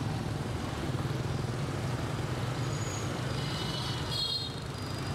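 Street traffic dominated by small motorbikes and scooters, a steady low engine hum and road noise. Brief high-pitched beeps come near the end.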